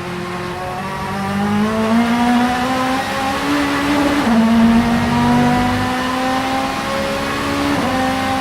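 Vauxhall Vectra Super Touring race car's 2.0-litre four-cylinder engine pulling hard under acceleration, its pitch climbing steadily through the revs, with a sudden drop for an upshift about halfway through and another near the end.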